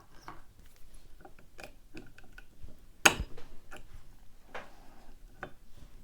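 Small metallic clicks and ticks from a Trioving SEC mortise lock cylinder being handled with tools: the plug turned back to the locked position and its retaining clip worked off. One sharper click comes about three seconds in.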